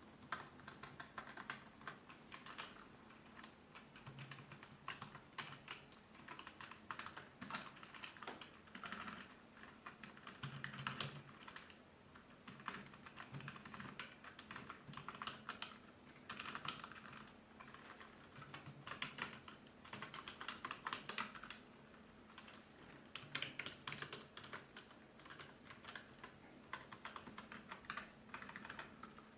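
Typing on an Office 5+ 2.4 GHz wireless ABNT2 keyboard: quick runs of key clicks with short pauses between them, as the keyboard is tested.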